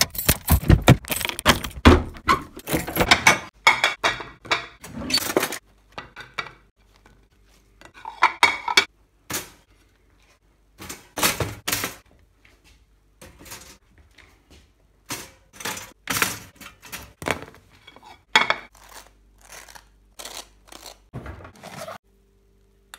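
Dishes and cutlery clattering: a string of sharp knocks and clinks as bagels are handled on a plate and a knife works on them, with a dense run of knocks in the first few seconds.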